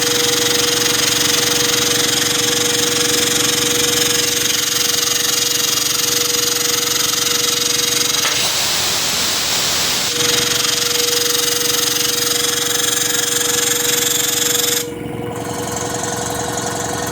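Quincy piston air compressor running unloaded, with a steady hum and a loud hiss of air venting through the open unloader valve. A louder rush of air comes about eight seconds in and lasts a couple of seconds. About fifteen seconds in the hiss cuts off suddenly and the sound drops as the unloader closes and the compressor starts charging.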